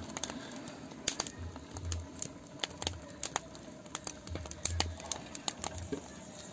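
Open wood fire crackling under a cooking pot: irregular sharp snaps and pops from the burning logs.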